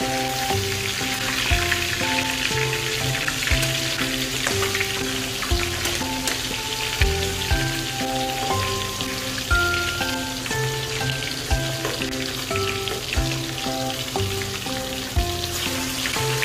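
Fish steaks sizzling as they fry in hot oil in a wok, a steady crackling hiss while a metal spoon turns them. Background music with a melody and a beat plays over the frying.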